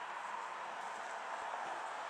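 Steady rushing of a Boeing 737-800's CFM56-7B jet engines as the airliner descends on approach to land, with gear down.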